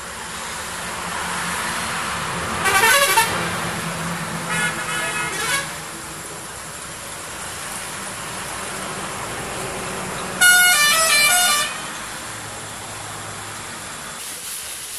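Vehicle horns honking: a short honk about three seconds in, another about five seconds in, and the loudest, a horn of several stepping tones lasting over a second, about ten seconds in. Underneath, chicken gravy in a kadai sizzles and hisses as it steams, easing off after about six seconds.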